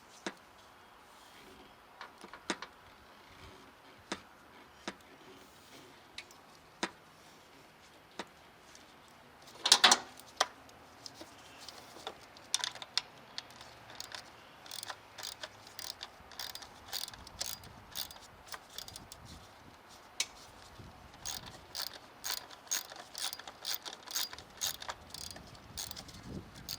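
Hand ratchet clicking as bolts are worked loose during intake manifold removal. There are scattered metallic clicks at first and a louder clatter about ten seconds in, then quick runs of ratchet clicks through the second half.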